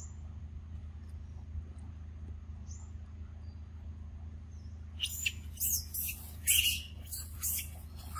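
Macaques squealing: a loud run of shrill, high-pitched calls starting about five seconds in, after a low steady hum with a few faint chirps.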